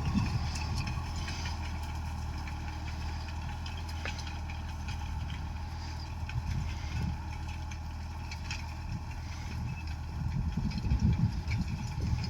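Tractor diesel engine running steadily at a low, even speed, with louder low rumbles near the end.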